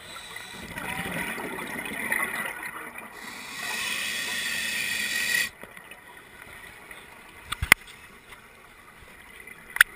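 Scuba regulator breathing heard underwater: a bubbling exhale lasting a couple of seconds, then a steady hiss of inhalation that cuts off sharply. A few sharp clicks near the end.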